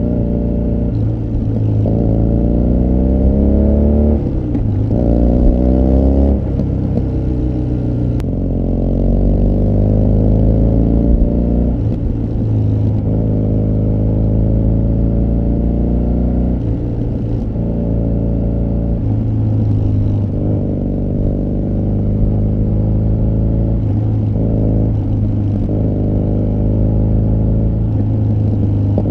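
BMW R nineT Scrambler's air/oil-cooled 1170 cc boxer twin through an Akrapovic muffler, heard from the saddle as the bike pulls up through several gears. The pitch climbs and drops back at each shift over the first eight seconds or so, then the engine runs at a steadier cruise, rising and easing with the throttle.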